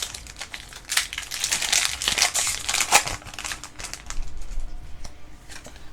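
Foil booster-pack wrapper of a Pokémon trading card pack crinkling as it is torn open, busiest in the first three seconds and then softer.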